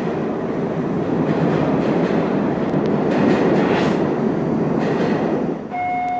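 A steady, loud rumbling, rushing noise with a few faint clicks, of the kind PANN files under train. About half a second before the end it cuts off and several steady held tones begin.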